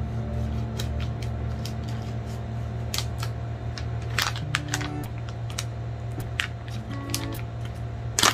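Scissors snipping through a product package and the packaging being handled and pulled open: a scatter of sharp clicks and crinkles, the loudest near the end, over background music.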